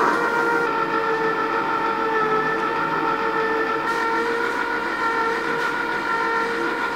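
Compressor ice cream maker running as it churns and freezes the mix: a steady, even hum made of several fixed tones.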